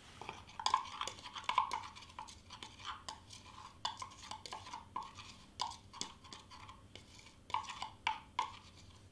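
Metal spoon stirring flock powder in a small glass jar, scraping and clinking against the glass in quick, irregular strokes.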